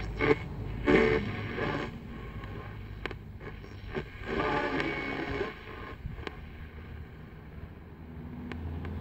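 Braun T-1000 analogue shortwave receiver being tuned down the band through its speaker: hiss and static that swell and fade, with brief snatches of station audio and a few sharp clicks. The signals are weak and noisy, typical of daytime shortwave reception.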